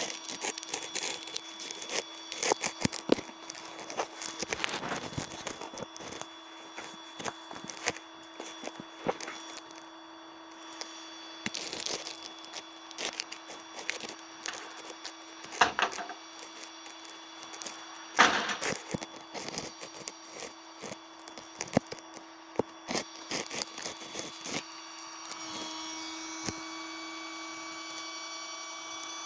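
Irregular metal clanks, knocks and rattles as chains and hooks are handled on a flatbed tow truck, over a steady mechanical hum. A louder steady whine joins near the end.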